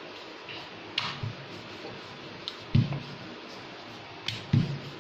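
Wooden rolling pin rolling out dough on a marble rolling board: scattered light clicks and two heavier thumps, about three seconds in and near the end, as the pin knocks and rocks on the board.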